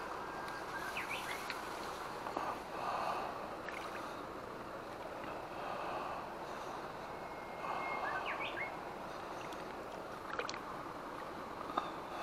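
Steady rush of flowing water, with a small bird chirping in short calls about a second in and again around eight seconds.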